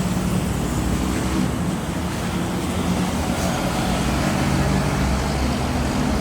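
Steady city traffic noise: the continuous hum and rush of passing vehicles' engines and tyres.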